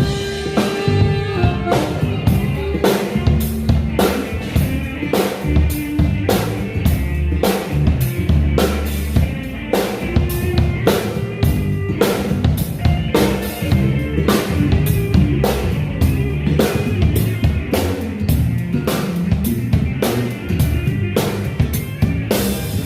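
Band music led by a full drum kit keeping a steady beat, kick and snare hitting about twice a second over bass and sustained chords.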